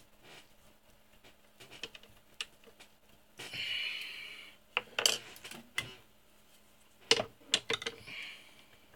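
Light metallic clinks and knocks from hands handling a lathe's three-jaw chuck and tool post, with a brief scraping rub lasting about a second, about three and a half seconds in.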